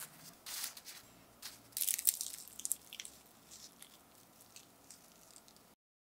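Crisp baked phyllo pastry of spanakopita triangles crackling as they are handled with metal tongs and set down on a wire cooling rack, with light clicks of the tongs. The loudest crackles come about half a second and two seconds in, and the sound stops abruptly near the end.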